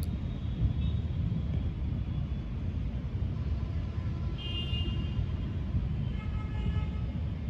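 Steady low rumble of a thunderstorm picked up by a phone's microphone. Two short, higher, horn-like tones come over it, the first about four and a half seconds in and the second a second and a half later.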